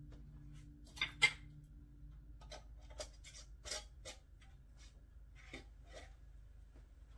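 Glass mason jars filled with sauce being handled and set down on a granite countertop: a string of sharp clinks and taps, the two loudest close together about a second in.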